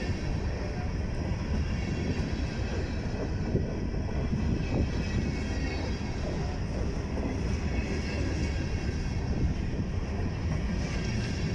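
Covered grain hopper cars of a freight train rolling past close by: a steady, low rumble of steel wheels on the rails.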